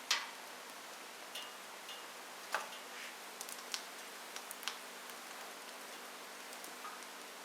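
Wood fire crackling in a fireplace: irregular sharp pops and snaps from burning logs over a steady hiss, the loudest pop right at the start.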